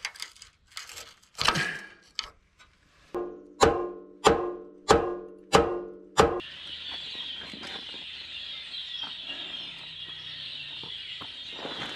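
Hammer blows on a steel drift against a Series 1 Land Rover's seized, rusted-in steering relay, each strike ringing metallically, about one every 0.6 s. The blows stop about six seconds in, leaving a steady high outdoor hiss with a few faint knocks.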